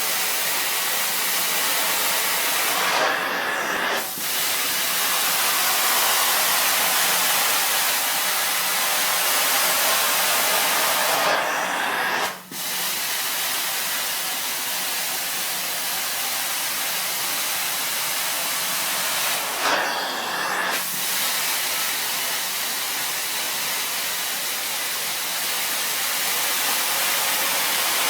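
Truck-mount carpet cleaning wand running on carpet with a loud, steady hissing rush. Its tone shifts briefly and the level dips about every eight seconds.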